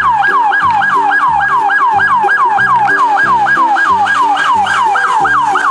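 Police siren on a fast yelp: quick sweeps, each falling in pitch, about four a second, over a faint background tune.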